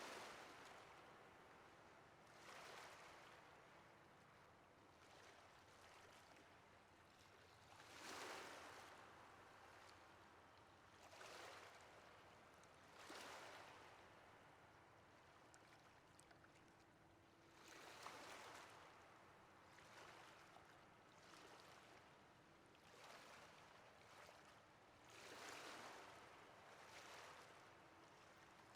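Faint ocean surf: waves wash in as soft surges every few seconds over a steady hiss of water, with the biggest swells about a third and two thirds of the way through.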